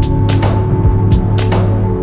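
Background music with sustained chords and a steady percussive beat.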